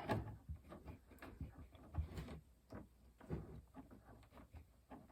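Faint, irregular clicks and knocks of plastic and metal parts being handled as the floppy drive's connector is worked loose from the chassis.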